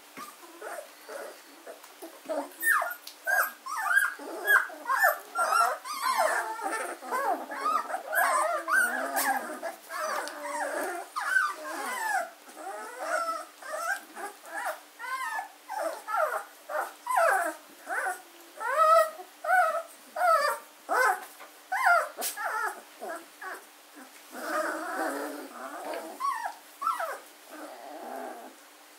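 A litter of 14-day-old German shorthaired pointer puppies whining and squeaking, many short cries overlapping and bending up and down in pitch, thinning out near the end.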